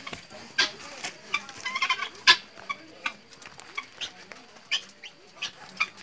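Helmeted guinea fowl giving short, sharp calls at irregular intervals, about a dozen of them, the loudest a little over two seconds in.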